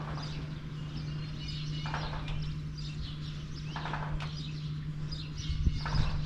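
Birds chirping over a steady low hum, with a short rasping call repeating about every two seconds.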